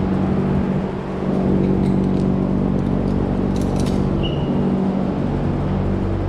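Steady low mechanical hum, with a few light metallic clicks a little past the middle.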